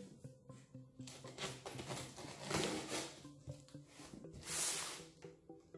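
Utility knife slicing through packing tape on a cardboard box: several short, scratchy cuts, the loudest near the end.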